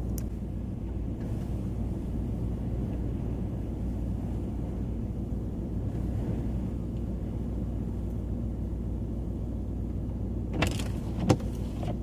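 Pickup truck engine idling, heard from inside the cab as a steady low hum. Two short clicks or knocks near the end.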